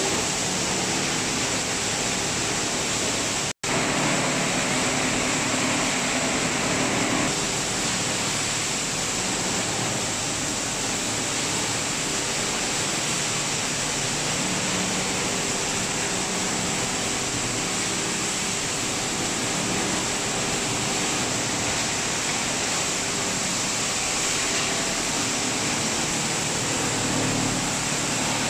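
Steady, loud noise of an industrial rigid-plastic washing line running: a rushing-water and machinery din with a faint motor hum underneath. It cuts out for an instant about three and a half seconds in.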